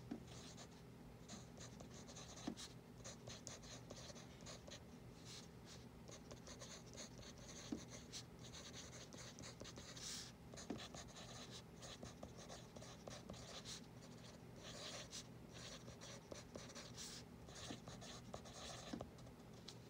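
A yellow Dixon Ticonderoga pencil writing on a paper worksheet: faint, quick scratchy strokes in short runs with small pauses between words. A low steady hum runs underneath.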